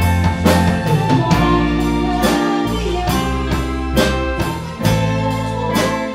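Live band playing: electric guitars, electric bass and drum kit, with a steady beat of about two drum hits a second.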